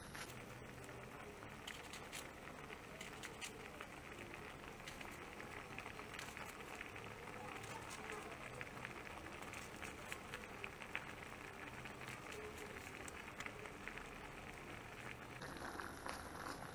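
Fish stew simmering in a frying pan: a faint, steady bubbling hiss dotted with many small pops and crackles.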